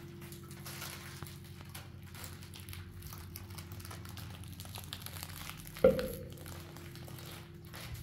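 Soft rustling of hands working flour and dough in a metal basin, over a faint steady hum. About six seconds in, a single sharp metal clank with a short ring.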